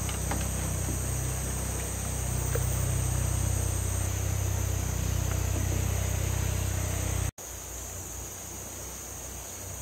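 Insects buzzing steadily at a high pitch, over a low steady hum. The sound cuts out for an instant about seven seconds in, then the insects resume without the hum.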